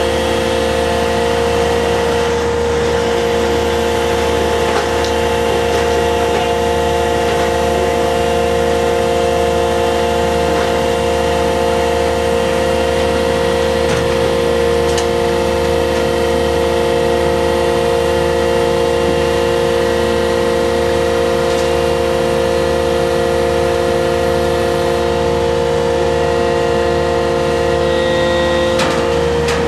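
Steady drone of a purse seiner's engines and deck machinery running, with a strong, even hum and a few light knocks here and there.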